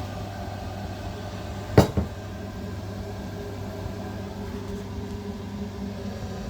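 Ideal gas boiler running with its combustion fan turning steadily and the burner lit, a steady hum; the fan has just been freed from seizing with oil. Two sharp knocks close together a little under two seconds in.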